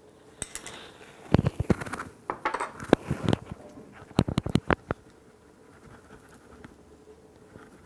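Clinks and knocks of metal cookware as a stainless steel frying pan is greased with vegetable oil and lifted off a gas stove. There is a quick run of sharp knocks over about four seconds, then quiet.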